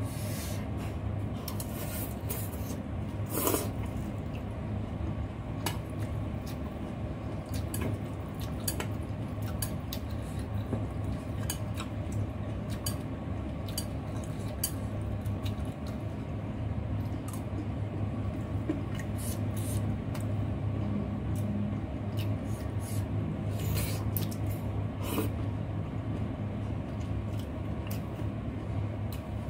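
Eating sounds: chopsticks clicking now and then against a dish while rice vermicelli noodles are slurped and chewed, over a steady low hum.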